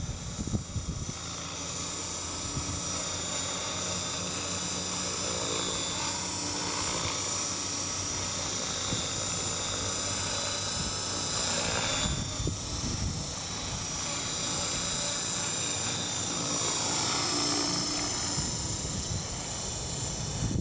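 TAYA Innovator radio-controlled helicopter in flight, its engine and rotor making a steady drone that shifts in pitch about halfway through. Wind buffets the microphone in the first second.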